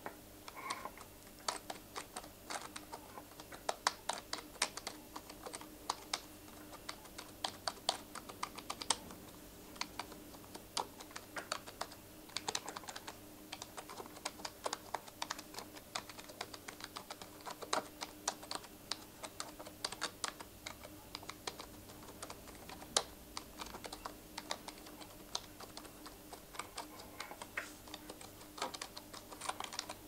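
Computer keyboard keys clicking irregularly as they are typed on, close to the microphone.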